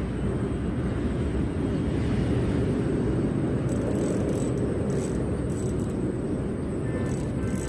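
Spinning reel being cranked, its gears and bail giving short, repeated high ticking from about halfway through, over a steady low rumble.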